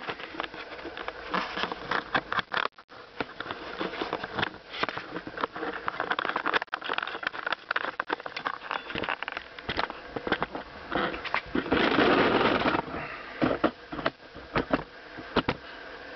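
Scraping and clicking of a tool working at a vintage Singer sewing machine to dig out old hardened grease and muck, with a longer, denser rasping stretch about twelve seconds in.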